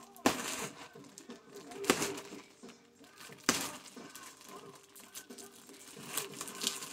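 Hands rummaging inside a gift package: rustling with three sharp knocks spaced about a second and a half apart, then more rustling near the end.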